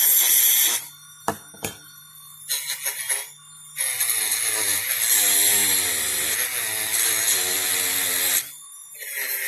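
Small handheld power tool, such as a rotary tool, worked against a die-cast metal toy body. It runs briefly, stops with a few clicks, gives a couple of short bursts, then runs for about four seconds with its pitch wavering as it is pressed into the work, and stops near the end before starting again.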